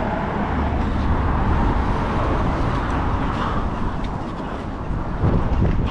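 Wind buffeting the microphone outdoors, a steady low rumble that swells in a gust near the end.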